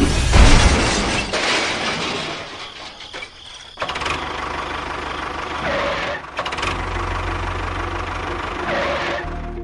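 Engine noise: a loud rushing burst at the start that fades away, then a steady engine running from about four seconds in.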